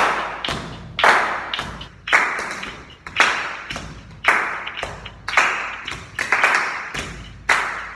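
Body percussion: hand claps and slaps on the body in a steady rhythm, a strong strike about once a second with lighter taps between, each trailing off in a short echo.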